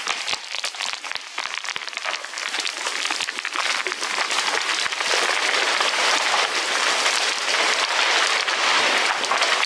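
Trees falling one into another: many sharp snaps and crackles of breaking branches, building about halfway through into a steady rush of crashing foliage.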